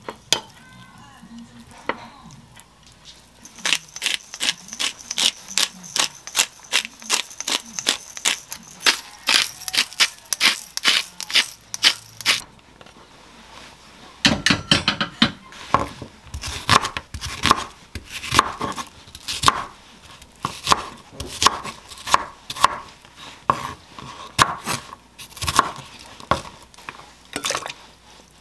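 A pepper grinder twisted in quick clicking turns, about three a second. From about halfway, a kitchen knife chops onion on a wooden cutting board at about two to three strokes a second.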